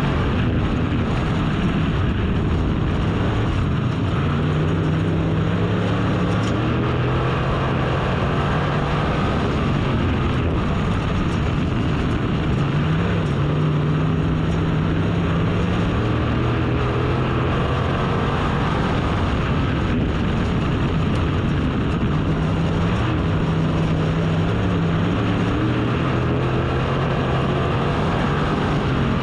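Race car engine running laps at speed. Its pitch climbs on each straight and drops off into the turns, repeating about every nine to ten seconds.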